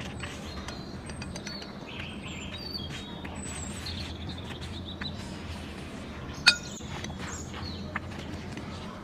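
Small birds chirping throughout, with chopsticks scraping against a ceramic plate and one sharp clink about six and a half seconds in.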